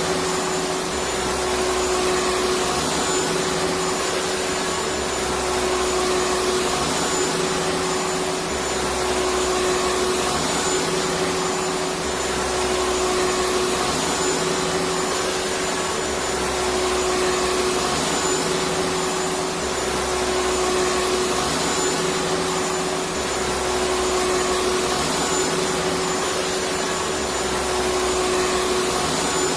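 Electric vacuum cleaner running steadily: a continuous hiss with a steady whine, over a low rumble that swells and fades every two to three seconds.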